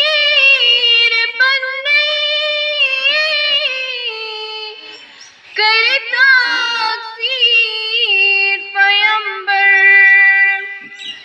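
A girl singing solo in long, held, gliding notes, with a short pause for breath about five seconds in.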